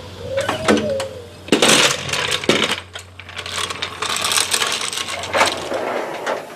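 Small metal objects clinking and clattering in a run of quick knocks and rattles, over a low steady hum that stops near the end.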